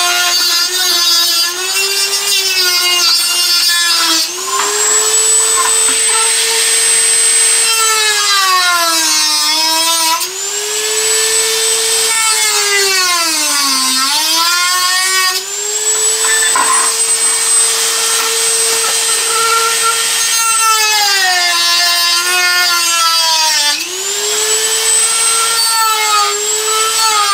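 Dremel rotary tool with a small cutting disc grinding into the hard plastic of a model bridge part. A high motor whine that sags in pitch each time the disc bites into the piece and climbs back as it frees up, several times over.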